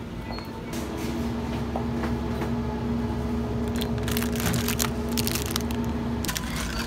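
Steady hum of a convenience-store refrigerated display shelf. About four seconds in, a plastic-wrapped snack crinkles as it is taken off the shelf.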